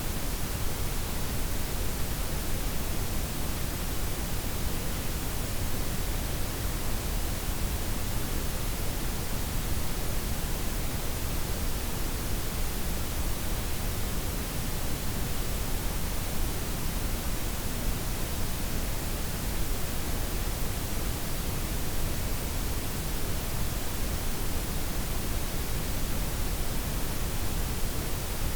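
Steady blend of white, pink and brown noise with the highs softened: an even, unchanging hiss with a full low end.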